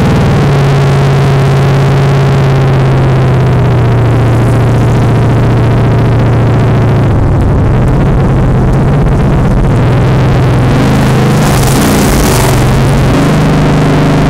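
Chevelle's engine running loud and steady under load, its pitch shifting about halfway through, with a hissing noise near the end.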